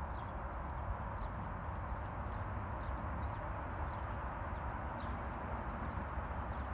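Outdoor ambience: short, high, falling bird chirps, roughly one or two a second, over a steady low rumble of distant traffic.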